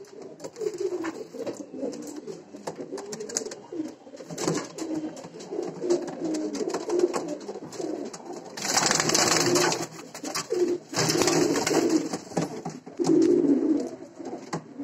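Domestic pigeons cooing repeatedly in a small coop, low and throaty. Two stretches of louder rustling noise cut in about two-thirds of the way through.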